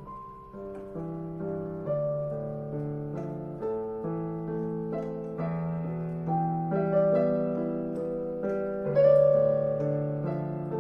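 Solo piano playing a slow melody over sustained chords, with a louder chord about nine seconds in.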